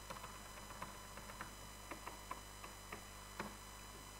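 Faint, irregular computer keyboard keystrokes as a passphrase is typed at a terminal prompt, with one somewhat louder keystroke near the end, over a steady low electrical hum.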